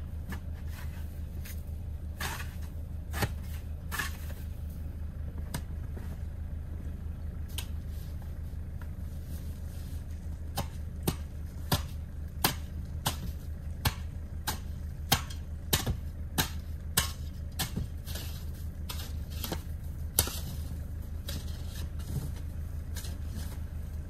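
Snow shovel striking and scraping at packed snow around a stuck car's front tire: a run of sharp strikes, quick and irregular, from about ten seconds in to about twenty, with a few earlier knocks, over a steady low hum.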